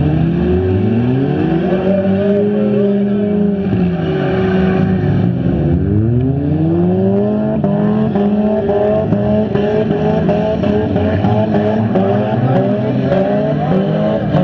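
Several stock front-wheel-drive cars' engines revving at once, their pitch rising and falling again and again as they accelerate and back off.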